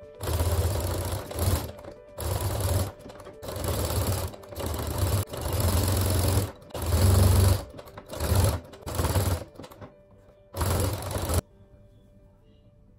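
Brother Innovis 15P electronic sewing machine stitching in short stop-start runs, about ten in all, as it understitches a jersey knit neckline facing. The stitching stops about eleven seconds in, leaving faint background music.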